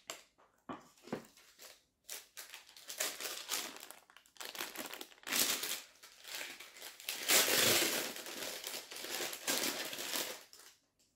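Brown kraft paper bag crinkling and rustling as it is handled and opened, in uneven bursts, loudest about seven to eight seconds in.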